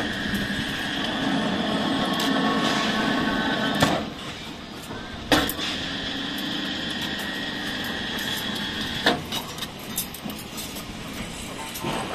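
Electric rebar bending machine running while its turntable bends a bundle of steel bars around the pin into triangular stirrups: a steady motor hum and whine, broken by metal clanks about four seconds in, again a second and a half later, and near nine seconds when it stops.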